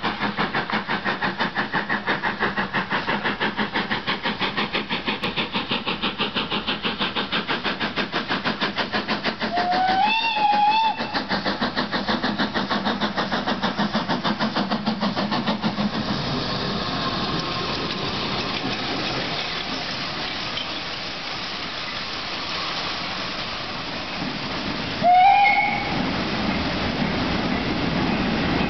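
4F 0-6-0 steam locomotive No. 43924 approaching with a freight train, its exhaust beating rapidly and evenly. About a third of the way in it gives a wavering whistle lasting about a second and a half. The beats then give way to the steady rolling noise of the goods wagons passing, and near the end comes a second, shorter and louder whistle.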